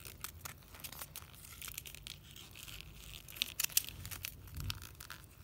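Origami paper being folded and creased by hand, giving light crackling and rustling, a little louder about three and a half seconds in.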